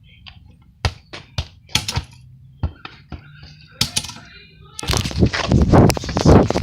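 A sledgehammer striking a plastic toy: a handful of sharp knocks and thuds at uneven gaps. About five seconds in they give way to a loud, dense crackling and rustling.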